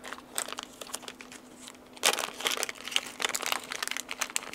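Small clear plastic parts bag crinkling as it is handled, in irregular crackles that become busier about two seconds in.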